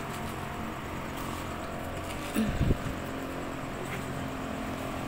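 A steady low mechanical hum, like a running engine, with a brief louder low thump about two and a half seconds in.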